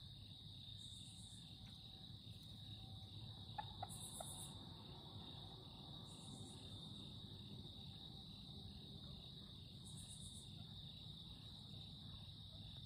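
Insects trilling steadily at a high pitch, with a higher buzz that comes and goes every few seconds. A few faint clicks come about three and a half to four seconds in.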